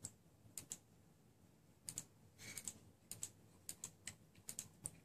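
Scattered small clicks and light taps: button presses on a vape mod as it is switched off, and the metal parts of a Kayfun atomizer being handled.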